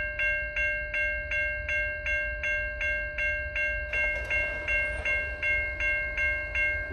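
Railroad crossing warning bell starting up as the crossing activates, ringing rapidly and evenly at about three strikes a second. A faint high whine joins about four seconds in.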